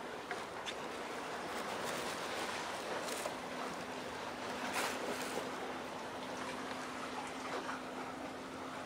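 Waterside harbour ambience: a steady wash of noise, with a faint steady hum coming in about three seconds in and a couple of brief clicks.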